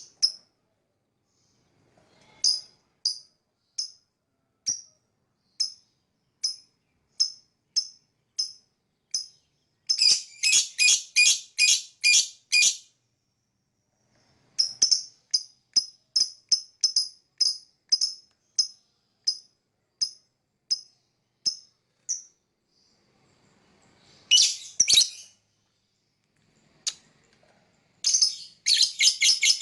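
Lovebird calling: a series of short, high chirps roughly one a second, broken by quick runs of rapid, chattering chirps about ten seconds in and again near the end.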